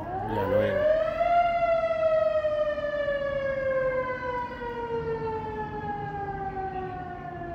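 Fire engine siren sounding one long wail: it rises quickly over the first second and a half, then slowly falls in pitch for the rest of the time.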